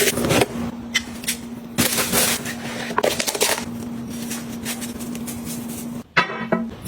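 Small objects being handled and set down: scattered sharp clicks and rustling over a steady low hum that stops about six seconds in.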